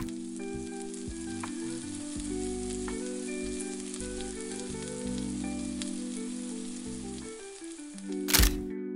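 A hot pot of noodles sizzling and crackling over soft background music. Near the end a brief loud burst comes, and the sizzling cuts off suddenly.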